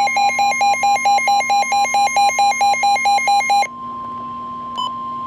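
Emergency Alert System flood warning alarm: a fast pulsing two-tone electronic alarm, about five pulses a second, for about three and a half seconds. It then gives way to a steady single-pitch attention tone, with a few short beeps over it near the end.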